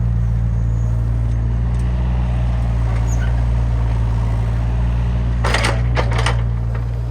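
Heavy construction machine's diesel engine running steadily up close, with a deep even hum. A few short sharp knocks sound about five and a half to six seconds in, and the engine fades near the end.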